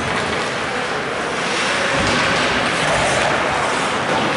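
Steady rink noise during ice hockey play: skates scraping the ice and arena hubbub blending into an even wash, with no single sound standing out.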